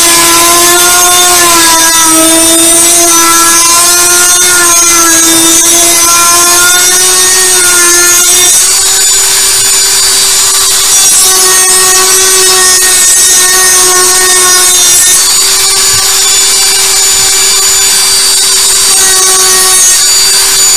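Dremel rotary tool with a drum sander bit running at high speed and grinding a groove into a PVC pipe coupler: one continuous loud whine. Its pitch wavers for the first eight seconds or so, then holds steadier and a little higher.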